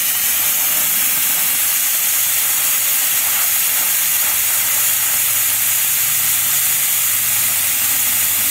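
Steady, loud hiss of compressed air through a pneumatic vacuum brake bleeder running continuously while it sucks power steering fluid out of the reservoir.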